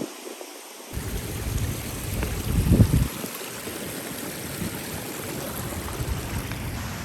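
Rushing water of a hill stream tumbling down a stepped rocky waterfall, a steady hiss. Wind buffets the microphone in low gusts over the first few seconds, strongest near the end of the third second.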